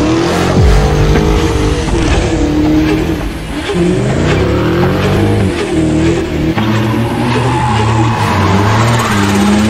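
Cars doing burnouts and donuts: engines revving up and down while spinning tyres squeal and hiss on the asphalt.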